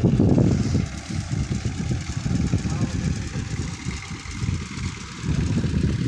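Wind buffeting the microphone: a loud, gusty low rumble that eases off for a few seconds in the middle.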